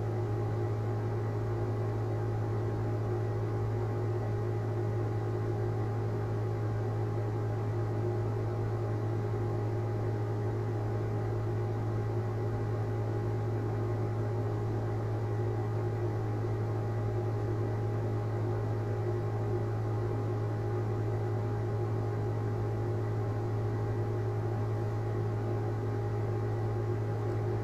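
Steady electrical hum, strongest in a low band near 120 Hz with fainter higher overtones, with no change from start to end.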